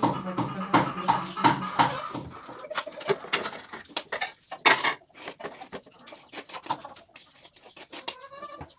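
Knife chopping an onion on a board, an even run of knocks about three a second at first and then irregular knocks. A bird gives a short call near the end.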